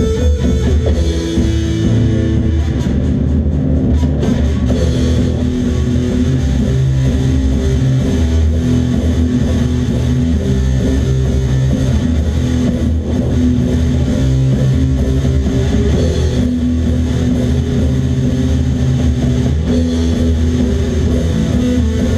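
A post-punk band playing live in rehearsal: guitar over drums and a heavy low end, a steady, continuous rock groove.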